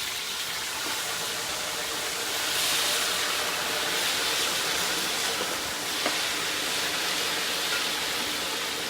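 Fries frying in a pot of hot oil: a loud, steady sizzle that swells a couple of seconds after they go in.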